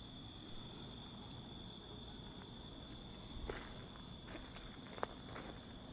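Insects chirping steadily in an even pulse, about two or three chirps a second, with a few faint clicks around the middle and about five seconds in.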